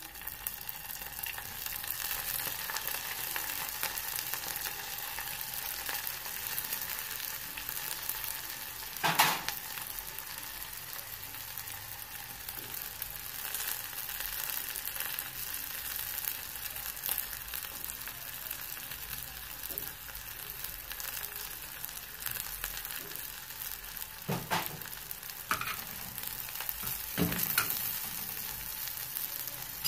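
Omena, small silver fish, frying in hot oil in a stainless steel pot, with a steady sizzling hiss. A metal spoon knocks against the pot a few times, loudest about nine seconds in and twice more near the end.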